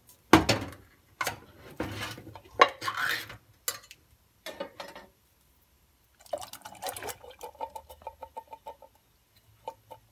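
Clinks and knocks of a metal can and a stainless-steel saucepan, with short splashes of liquid as canned black beans and their liquid go into the pot. Past the middle comes a run of quick, evenly spaced clicks lasting about two seconds.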